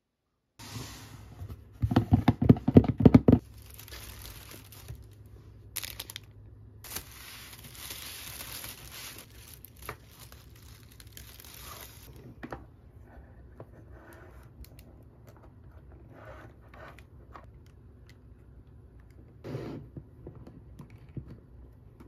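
Doll packaging being torn open and crinkled by hand, with a loud burst of tearing about two seconds in. Crinkling rustle follows, then softer rustles and small knocks as the ball-jointed doll body is unwrapped.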